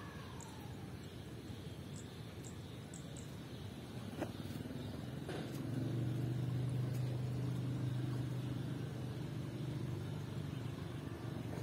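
A motor vehicle's engine running with a steady low hum, coming in about five and a half seconds in and easing off around ten seconds, over faint open-air background noise. Two small clicks come just before it.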